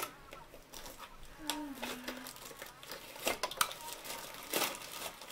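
Plastic packaging crinkling, with irregular sharp clicks and crackles, as hair-product bottles are unwrapped and opened by hand.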